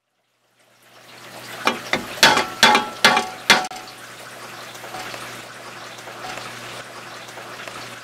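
Six sharp knocks with a short ringing tone, about half a second apart, then a steady hiss over a low hum.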